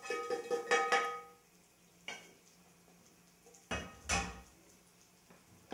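A frying pan is scraped and knocked with a metal utensil as it is emptied into a bowl, and the pan rings after each quick strike during the first second and a half. This is followed by a click and then two duller knocks about four seconds in.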